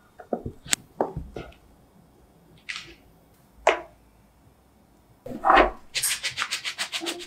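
Silicone spatula scraping and folding cake batter in a glass bowl, a few short scrapes, then a square cake tin of batter rattled against the counter near the end to shake the batter level: a fast run of sharp knocks, about eight a second.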